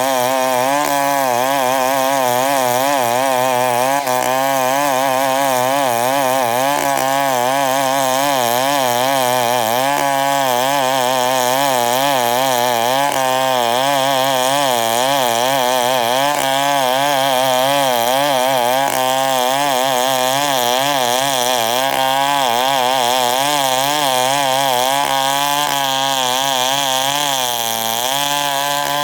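Two-stroke chainsaw running hard while cutting embre wood into 2x6 boards. Its pitch wavers up and down every second or so as the chain loads in the cut, and it dips briefly near the end.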